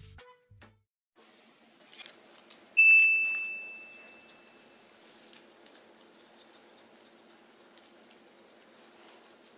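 The music ends right at the start. After a moment of quiet, a single bright bell-like ding rings out about three seconds in and fades over about two seconds. Faint scattered ticks and taps follow over a low room hum.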